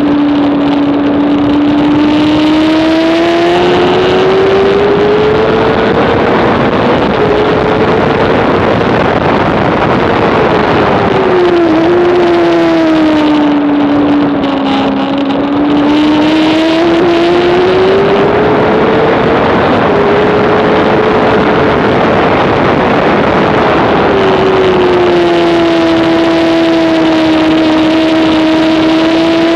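Honda CBR600RR inline-four engine at high revs under race riding, its pitch climbing and falling several times as the rider works the throttle through the corners, over a constant rush of noise. About halfway through the engine note drops and the sound briefly eases before it climbs again.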